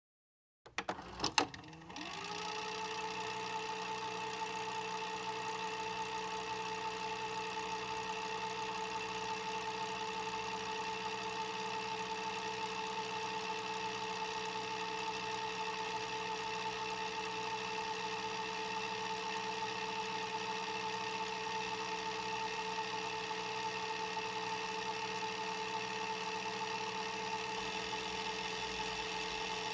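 Videocassette recorder going into record: a few loud mechanical clicks as the mechanism engages, then the tape transport and head drum spinning up, rising briefly in pitch, and running steadily with a whirring hum.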